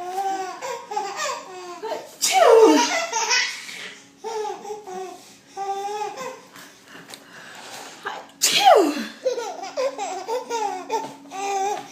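A baby laughing in repeated high-pitched bursts. Two loud sneezes, about two seconds in and about eight and a half seconds in, each set off a fresh round of laughter.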